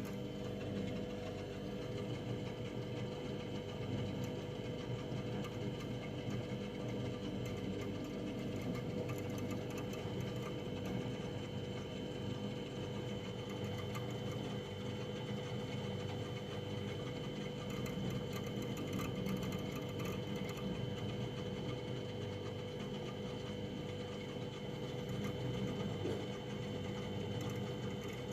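Household freezer running: a steady, unbroken hum with a held mid tone and a faint higher whine.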